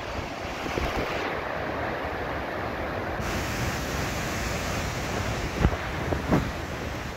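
Storm wind blowing through trees and buffeting the microphone, a steady rushing noise. Two brief knocks near the end.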